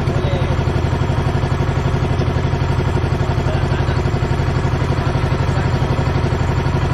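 Engine of a small outrigger fishing boat (bangka) running steadily with a fast, even throb, pushing the boat along.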